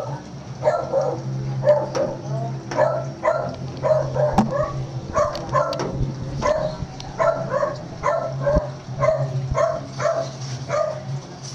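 Shih tzu barking repeatedly, about two short barks a second, over a steady low hum.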